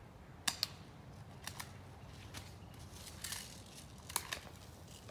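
Airsoft pistol shots: faint sharp snaps about once a second, several of them quick double clicks.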